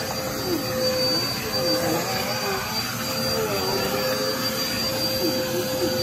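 Upright bagless vacuum cleaner running while it is pushed across carpet: a steady rush of air with a high, steady whine, and a lower tone that wavers up and down.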